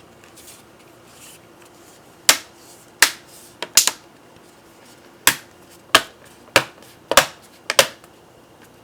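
Plastic clips of a ThinkPad T430 screen bezel snapping into place one after another as the bezel is pressed onto the lid: about a dozen sharp clicks, some in quick pairs, beginning about two seconds in. It sounds kind of like bubble wrap.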